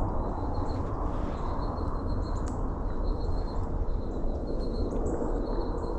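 Woodland ambience: a steady low rumble with a faint, high, thin chirp that repeats on and off, typical of a small bird calling in the brush.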